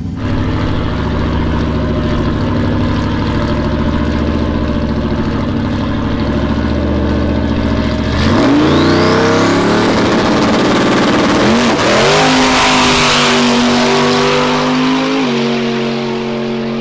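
Engine of a 1000 hp drag-race Corvette, first running steadily at the start line as heard inside the cockpit. About eight seconds in it launches down the strip, the engine pitch climbing hard with a couple of sudden drops as it pulls away.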